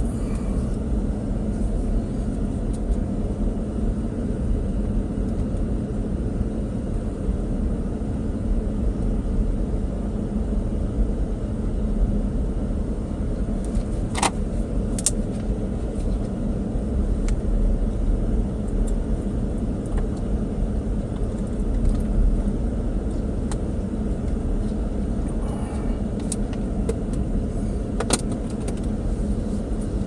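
Steady road and engine noise inside a pickup truck's cab while driving, a low rumble with a few short clicks about halfway through and near the end.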